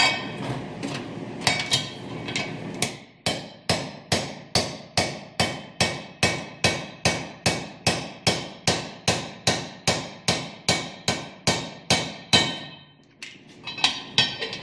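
Hammer blows on a driver, tapping the ARB air locker seal housing into a Toyota Land Cruiser front differential case. The strikes come steadily at about two a second, each with a metallic ring; after a short pause near the end come quicker taps. The ring is the sign the mechanic listens for that the housing is seating all the way.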